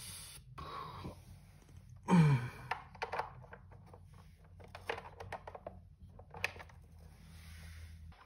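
Handling noise from a Bose SoundTouch 20 speaker's parts being fitted back together: scattered light clicks, knocks and scrapes of plastic and metal over a faint low hum. There is one louder, falling-pitched sound about two seconds in.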